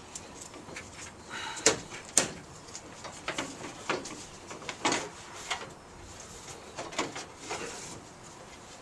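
Irregular clicks and knocks of a fan belt being worked by hand through the cooling-fan blades of a Citroen Ami 6 engine, with two sharper knocks around two seconds in.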